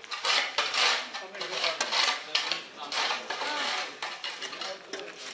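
Shovel scraping repeatedly across a concrete floor through rubbish, with cans and bits of debris clinking.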